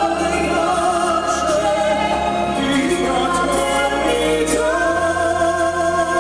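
A young male classical-style voice singing a slow operatic ballad with orchestral backing. Near the end he holds one long steady note.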